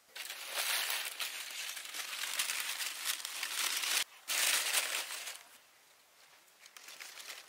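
Close crinkling and crunching of plastic sheeting and dry leaves being handled, in a loud spell of about four seconds, a brief break, a second loud spell of about a second, then fainter rustling.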